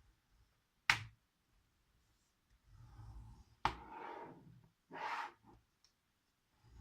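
A scoring tool drawn along the groove of a scoreboard through card: two scraping strokes in the second half, with a sharp click about a second in.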